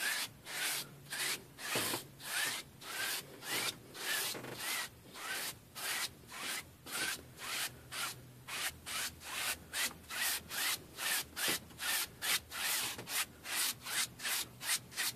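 A 2-inch paint brush swept back and forth across a canvas to blend clouds: a steady run of dry, bristly rubbing strokes, about two a second at first and quickening to nearly three a second.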